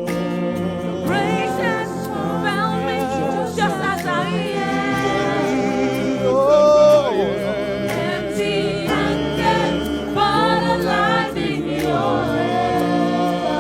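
Live gospel worship music: singers holding and bending wavering notes over sustained chords, with the chords changing about five seconds in and again near the end.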